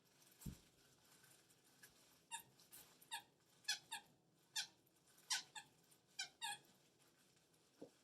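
Squeaky dog toy squeaking repeatedly as a husky puppy chews it: about ten short squeaks, often in quick pairs. A soft thump comes just before and another near the end.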